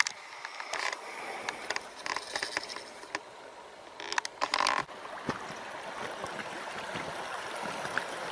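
River water running steadily, growing slightly louder toward the end, with scattered short clicks and knocks, the loudest cluster about four seconds in.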